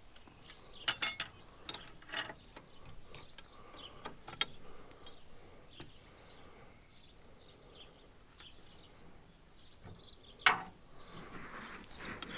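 Scattered metallic clicks and clinks of a hydraulic hose fitting being threaded on by hand and worked with a wrench, with two louder clanks about a second in and near the end.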